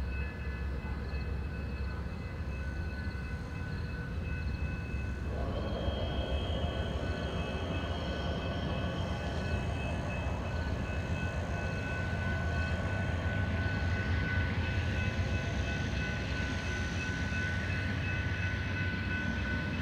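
Amtrak California Zephyr pulling out of the station behind two GE P42DC diesel locomotives: a steady diesel rumble with a thin whine, and the rolling of the bilevel passenger cars. The sound steps up about five seconds in and slowly grows louder as the train picks up speed.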